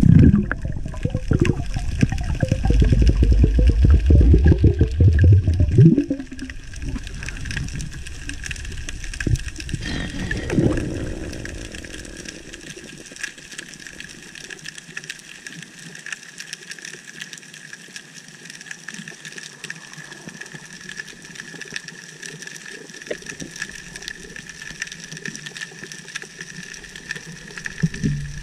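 Underwater sound from a diver's camera: heavy rushing and bubbling of water for the first six seconds or so, another short surge about ten seconds in, then a quieter underwater hiss with a steady faint high whine.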